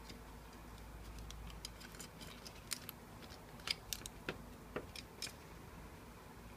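Faint crinkling of thin copper foil and small clicks as it is wrapped and pressed around multimeter test probes on a plastic film. The clicks come as a scattered run of separate ticks through the middle of the stretch, over a faint low hum.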